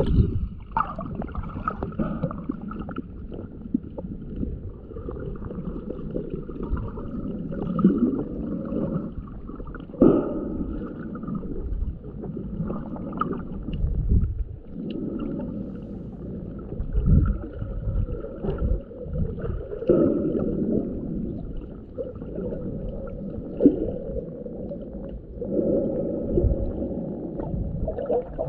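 Muffled water sloshing and gurgling, heard through an underwater camera's housing in shallow water. It swells irregularly every few seconds.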